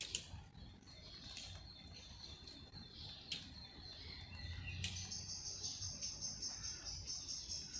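Songbirds calling: thin high notes, then a fast high trill from about five seconds in, with a few sharp clicks.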